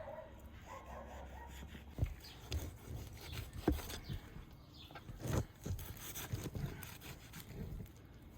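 A knife cutting and scraping raw beef away from rib bones, with irregular light knocks of the blade against bone or the cutting board.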